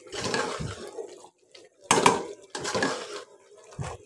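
A large spoon stirring chicken and tomatoes in a karahi, in about three strokes with short pauses between them.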